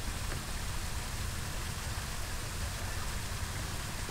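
Steady rushing of water pouring through a spillway: a constant hiss over a low rumble.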